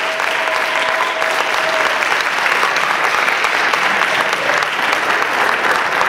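Congregation applauding, a dense steady clapping that swells a little after a couple of seconds.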